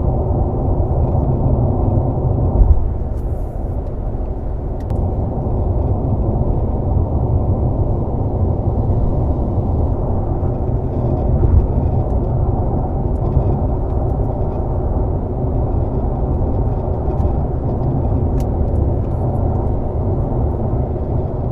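Cabin road and tyre noise of a Honda Accord Hybrid driving on a rough expressway surface: a steady low rumble with a few faint, scattered rattling clicks, the abnormal 'karakara' rattle that the rough road sets off in this car.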